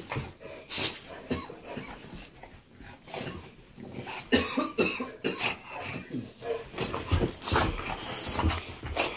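English bulldog making short, noisy snuffling breaths in quick irregular succession as it noses and digs at a plush dog bed.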